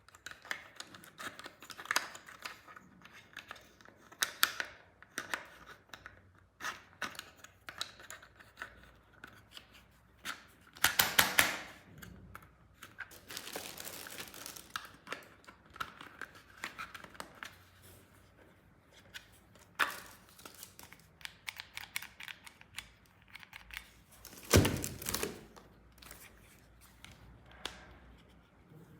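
Plastic toy parts and packaging being handled: scattered clicks and crinkling, with louder tearing or rustling bursts about a third of the way in and again near the end.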